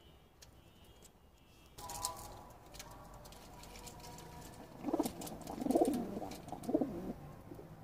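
Domestic pigeon cooing: a run of low, pulsing coos starting about five seconds in and lasting some two seconds, with scattered light clicks around it.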